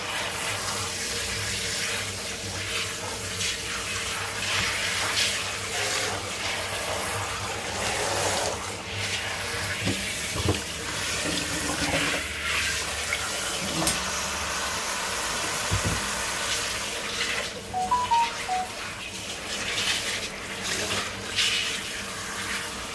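Kitchen tap running into a plastic bowl and stainless steel sink as dye is rinsed out of a wet cardigan. There are a few knocks about halfway through, as the bowl is tipped out.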